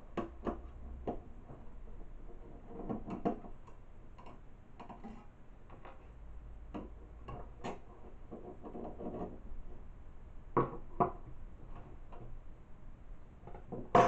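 Screwdriver working small steel screws out of a mortice lock case on a wooden bench: scattered light clicks, scrapes and metallic rattles as screws turn and are set down. Two sharper clicks come about ten seconds in, and a louder metal clatter near the end.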